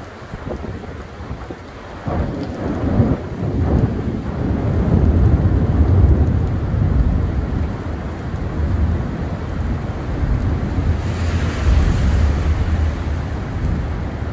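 Long rolling rumble of thunder over the steady hiss of heavy rain; the rumble swells about two seconds in, is loudest around the middle and keeps rolling, with a brighter surge near the end.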